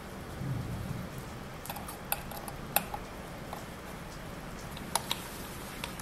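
Handling noises from a metal mounting plate and flat ribbon cable being fitted: a few sharp, scattered clicks and taps, two of them close together near the end. A brief low rumble comes about half a second in, over a steady background hiss.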